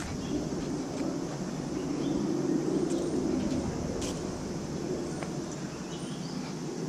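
Outdoor park ambience: a steady low background noise with a few faint, short bird chirps.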